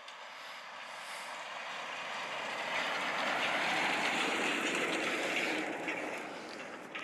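A passing vehicle: an even rushing noise with no clear engine note that swells to a peak about three to four seconds in, then fades away.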